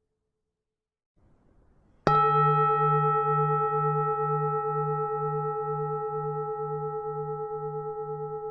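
Vietnamese bronze temple bell struck once about two seconds in, then ringing on with a slow fade, its low hum wavering about twice a second.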